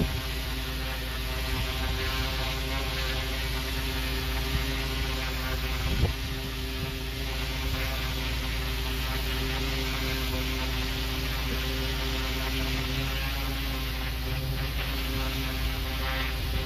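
Pressure washer running steadily, a constant machine hum under the hiss of its high-pressure jet blasting water onto block paving. A single short knock about six seconds in.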